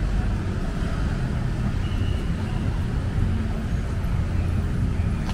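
Street traffic: motor vehicle engines running with a steady low rumble.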